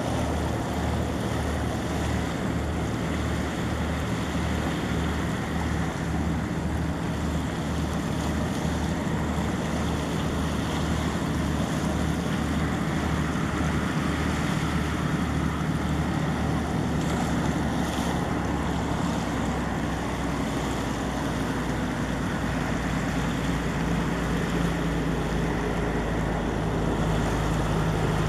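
Meteor hydrofoil passenger ship running at speed on its foils, a low engine rumble under the rush of water and waves, with wind on the microphone. The rumble pulses for the first half, then turns steady, and a steady hum comes in near the end as the ship draws near.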